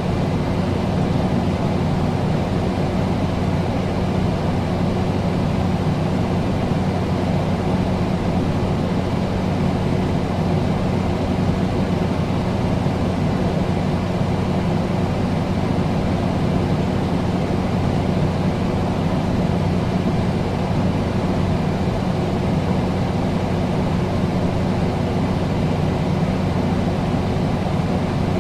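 Air conditioner running steadily: an even rush of air over a constant low hum.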